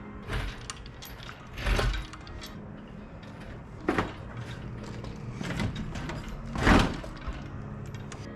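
A series of irregular clunks and scrapes, five in all, the loudest near the end, over a low steady hum.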